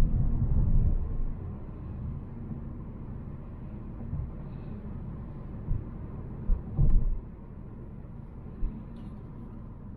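Low rumble inside a Volvo C70, broken by a few dull thumps, the loudest about a second in and again near seven seconds. It then settles to a quieter, steady rumble.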